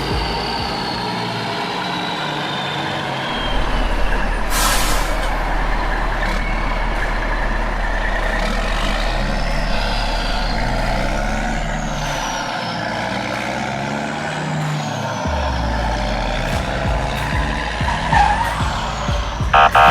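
Heavy truck and construction machinery engine sound running steadily, with a short air-brake-like hiss about four and a half seconds in and a few falling whines.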